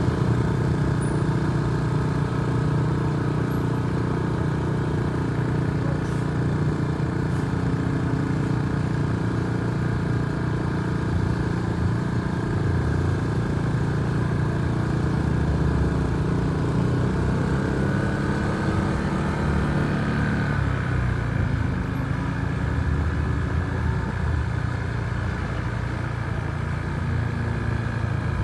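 Bus engine running steadily, its pitch shifting slightly about two-thirds of the way through.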